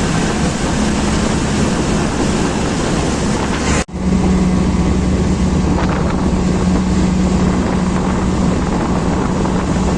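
Motorboat engine running with a steady low hum under heavy wind on the microphone; the sound drops out for an instant about four seconds in, then carries on.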